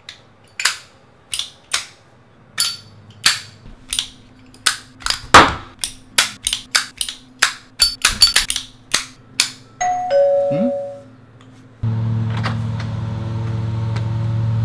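Irregular sharp clacks of a small object fidgeted with in the hand, coming thicker and faster about eight seconds in. About ten seconds in, a two-tone doorbell chime, the second note lower. From about twelve seconds a steady low hum sets in.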